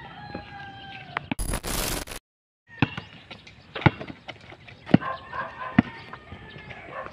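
A basketball bouncing on a concrete road as a player dribbles: three sharp bounces about a second apart in the second half. In the first second a drawn-out animal call sounds in the background, then a loud burst of noise cuts off into a brief silence.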